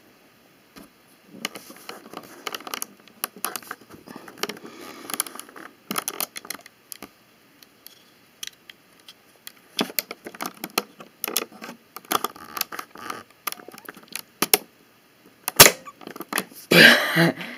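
Clicking and rattling of small plastic Lego pieces being handled while a rubber-band Lego launcher is loaded, with a sharp snap near the end and a louder rustle just after it.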